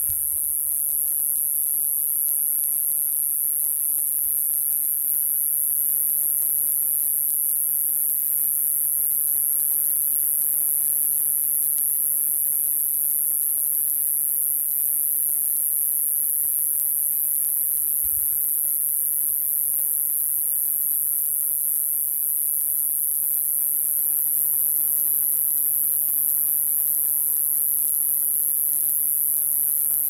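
A cicada singing: a continuous, high-pitched buzz that holds steady without a break.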